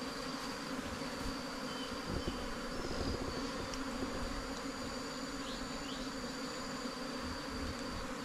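A disturbed honeybee colony buzzing: many bees flying in the air around their dug-out underground nest, a steady hum. A thin, steady high tone runs behind it.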